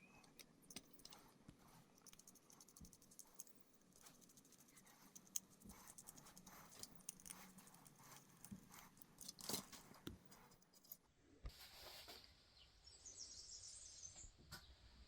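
Faint, scattered clicks and light taps of small plastic toy parts being handled, with a denser flurry of clicks about two-thirds of the way through and a brief hiss near the end.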